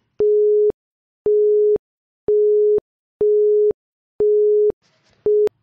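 Electronic countdown-timer beeps counting down the time to answer a quiz question: five steady, mid-pitched beeps about half a second long, one a second, then a sixth, shorter beep near the end.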